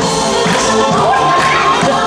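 Music playing, with a crowd of teenagers cheering and shouting over it.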